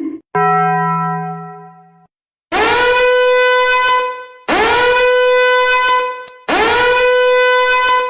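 Three identical long horn-like blasts, each about two seconds, each scooping up into pitch at the start, played one after another as a meme sound effect. Before them comes a single lower tone that fades out over about a second and a half.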